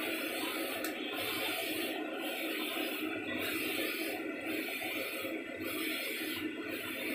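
UV flatbed printer running, a steady machine whir and hiss that pulses about once a second as its print-head carriage sweeps back and forth.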